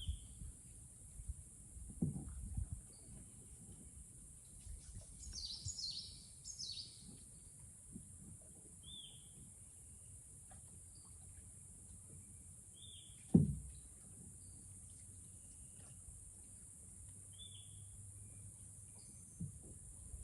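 Rainforest ambience: a steady high-pitched insect drone with short bird calls repeating every few seconds and a brief burst of bird chatter. Two knocks stand out, the loudest a sharp one about thirteen seconds in.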